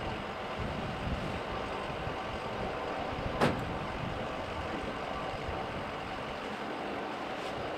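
Steady low background rumble of the kind made by running vehicles, with one short sharp knock about three and a half seconds in.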